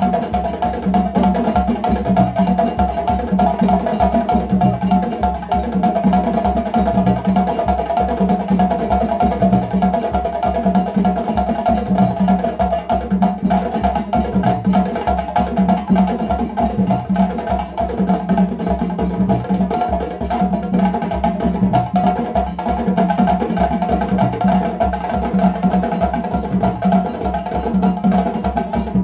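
An ensemble of djembes played by hand, many drums together in a busy, unbroken rhythm.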